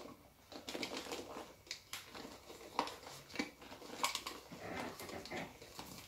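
Deflated PVC vinyl of an Intex inflatable bull rustling and crackling irregularly as it is handled, with a few sharper crinkles.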